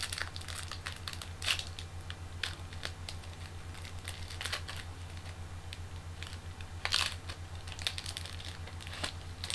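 Packaging of a case of basketball trading cards being opened by hand: scattered crinkling, rustling and short tearing sounds, with a steady low electrical hum underneath.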